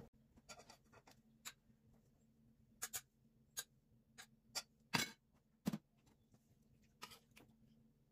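Metal serving spoons clinking and scraping against a rice cooker's inner pot, a steel pan and a china plate as rice and rendang are dished up: a faint string of short, separate clicks and knocks, the loudest two about five seconds in.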